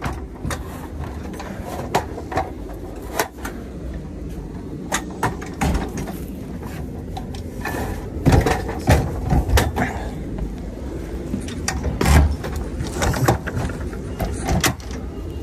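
Aluminium load-securing bar being handled and fitted into a trailer's side rails: a string of metallic clicks and knocks, with the heaviest thumps about eight and twelve seconds in.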